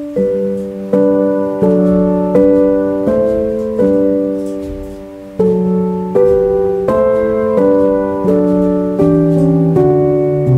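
Background piano music: slow chords struck about three every two seconds, each left to ring and fade, with one chord held longer in the middle.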